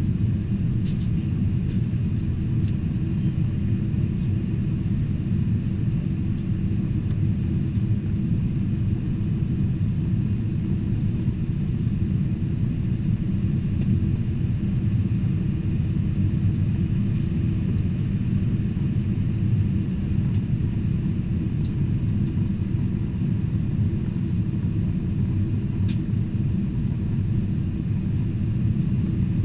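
Steady low rumble of a Boeing 747-400 airliner in flight, heard inside the passenger cabin: engine and airflow noise with a faint constant hum.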